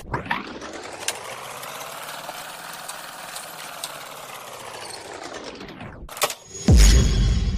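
Intro sound effects: a sweep whose pitch rises and then falls over about six seconds, followed near the end by a sharp hit and a loud, deep boom that drops in pitch.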